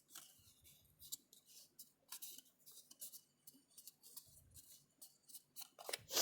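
Cardstock being bent and creased by hand along its score lines: faint, scattered papery rustles and crackles, with a couple of soft low bumps and a louder crackle near the end.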